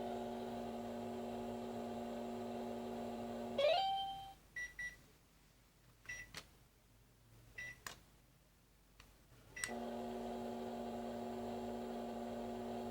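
Keenway Play@Home toy microwave playing its electronic running sound, a steady buzzing hum. About a third of the way in the hum stops with a short rising chime. Several short high beeps and clicks follow, and near the end the hum starts again.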